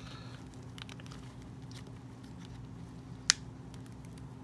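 Faint clicks and handling noise of a plastic doll hat being pushed onto a doll's head, with one sharp click about three seconds in, over a steady low hum.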